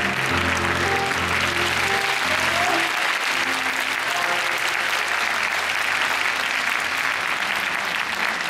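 Theatre audience applauding steadily over the closing notes of a live tango ensemble with double bass and piano; the music stops about three seconds in and the applause carries on.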